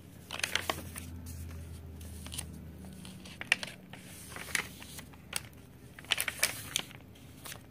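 Paper pages of a handmade junk journal being turned and smoothed by hand: soft rustling with several short, sharp paper flicks and taps spread through.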